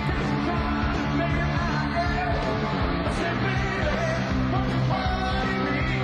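Rock band playing live with a singer, in a poor-quality recording.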